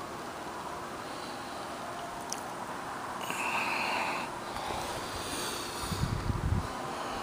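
Outdoor wind ambience with rustling from the handheld camera being moved, louder for about a second a few seconds in, and a brief cluster of low buffeting thumps on the microphone about six seconds in.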